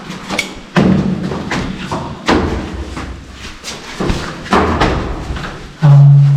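Irregular knocks and thumps as a large solar water heater tank is carried and bumped along. Near the end there is a loud steady low hum lasting about a second.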